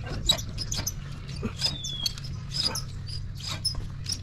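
Rope being hauled through the pulleys of a rope rescue hauling system: a quick, irregular run of short squeaks and clicks, about three a second, over a steady low hum.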